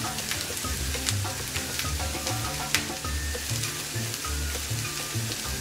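Chopped onion, ginger and garlic sizzling in hot olive oil in a stainless steel pan as the spices toast, with a few small crackles. A background music bass line plays under it.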